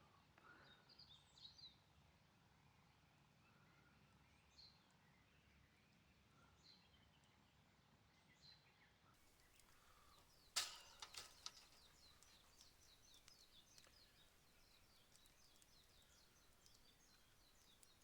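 Faint wood campfire crackling, with a sharp pop about ten and a half seconds in and then a run of small irregular crackles and ticks. The first half is near silent, with only a few faint short high sounds.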